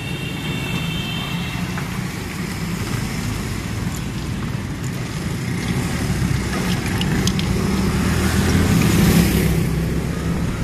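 Road traffic and vehicle engine noise heard while riding along a busy street: a steady low rumble that grows louder toward the end. A brief high whine runs through the first second and a half.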